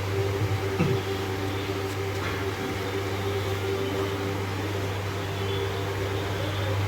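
Steady hum of a running electric motor, such as room fan or cooling equipment, with a low drone and a constant higher tone.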